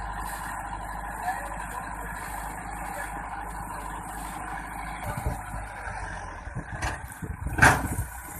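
Massey Ferguson 385 tractor's diesel engine running steadily while its hydraulics tip a loaded trailer. In the last few seconds, as the tractor moves off, come irregular low thumps and a loud sharp knock about three-quarters of the way through.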